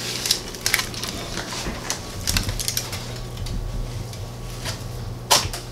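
Scattered clicks and knocks of a ceramic baking dish being slid off a metal oven rack and set down on a countertop, with a sharper knock about five seconds in, over a low steady hum.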